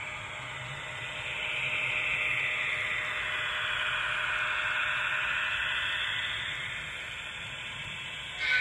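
HO-scale model train running past on the layout track: a steady hissing rush of wheels and motor that swells as the locomotive comes close and eases off again after it passes.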